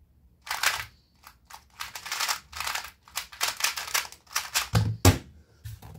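2x2 speed cube being turned fast in the hands: a run of quick plastic clicks and clacks as the layers snap round, with a heavier knock about five seconds in.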